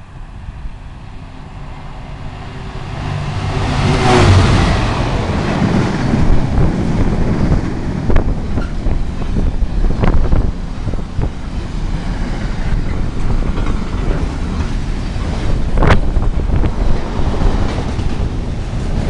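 Container freight train passing at speed. It grows louder as it approaches and is loudest about four seconds in, then the wagons keep up a continuous rumble on the rails with occasional sharp knocks.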